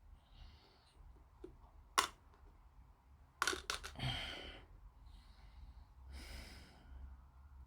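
Small sharp clicks of plastic kit parts and hobby tools being handled on a work surface: one about two seconds in and a quick cluster of three or four around three and a half seconds. Soft nose breathing between them.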